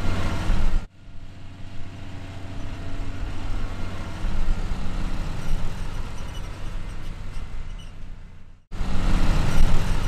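A motor vehicle engine running with a steady low hum. The sound cuts off abruptly a little under a second in, carries on in a noisier form, and cuts again near the end.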